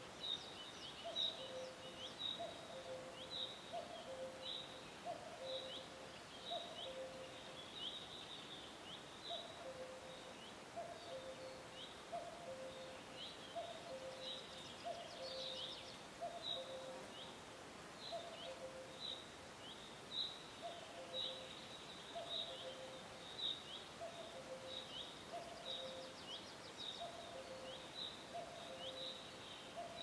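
Birds singing in a forest: short high chirps come over and over, about one or two a second, over a lower two-note call, a higher note then a lower one, repeated about once a second in runs with short pauses. A faint steady hiss lies underneath.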